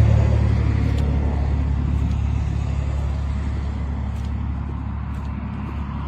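A steady low rumble, as of a vehicle engine running, slowly getting quieter, with faint clicks about once a second.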